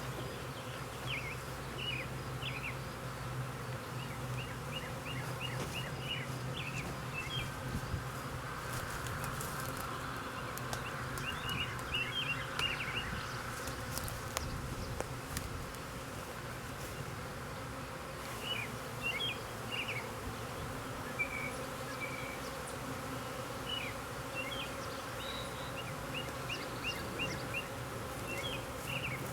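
A swarm of honeybees buzzing in the air around the hive box, a steady drone of many wings, with short high chirps now and then.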